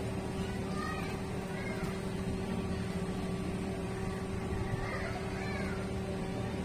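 A steady low mechanical hum. A few faint, short rising-and-falling high calls sound over it about a second in and again around five seconds in.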